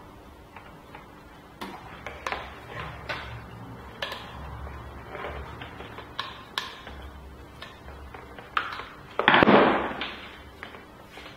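Screwdriver and small metal parts being worked by hand: scattered light clicks and taps, with a louder clatter about nine seconds in as the screwdriver and parts are set down and handled on the wooden bench.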